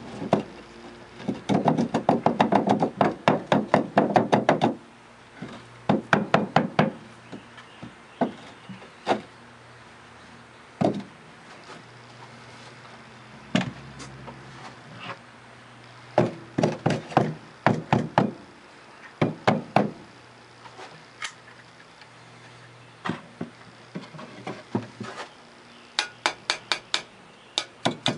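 Wooden molding flask knocked against the wooden slats of a sand bin to shake out the greensand mold: a fast run of wooden knocks in the first few seconds, then scattered groups of knocks.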